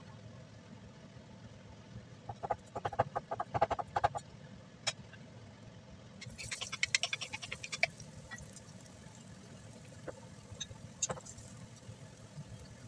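Hot cooking oil in a nonstick frying pan crackling in two bursts of rapid pops, a few seconds in and again midway, with a few single pops later, over a steady low hum.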